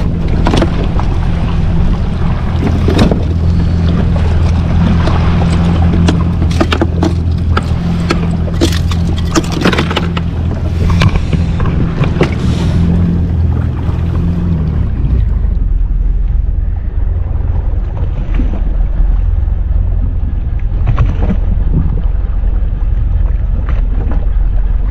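Yamaha jet ski engine idling with a steady low hum, with knocks and splashy hiss over it for the first half. About halfway through, the engine note shifts and the hiss falls away, leaving mostly the low hum.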